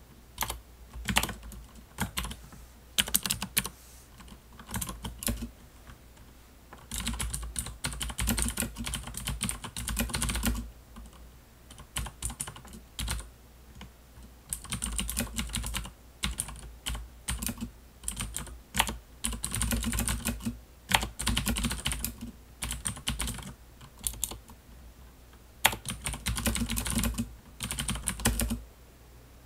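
Typing on a Das Keyboard computer keyboard: clackety clacking keystrokes in fast runs of a few seconds, broken by short pauses.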